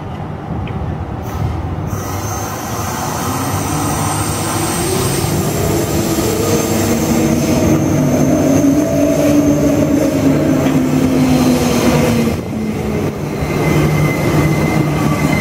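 Transperth A-series electric multiple-unit train moving at the platform, its traction motors whining in a tone that rises and then eases down, with some wheel noise. The whine drops away about twelve seconds in, leaving the steady hum of the train standing at the platform.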